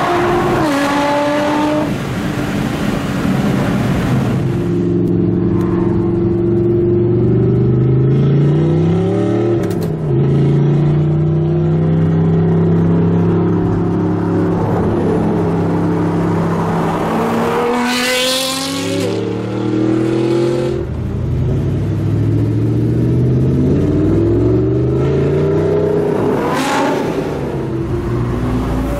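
Sports car engine accelerating hard, its pitch climbing and then dropping back at each gear change, several times over, heard from inside a car's cabin.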